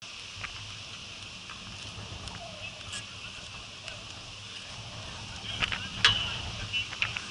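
Outdoor ball hockey play: scattered sharp clacks of sticks and ball over a steady high hiss, with a loud crack about six seconds in and a cluster of short high squeaks and clicks toward the end as play comes toward the net.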